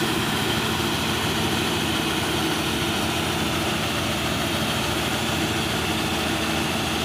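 Hira Harvest King 985 combine harvester running steadily while its unloading auger discharges grain: a constant engine and machinery drone.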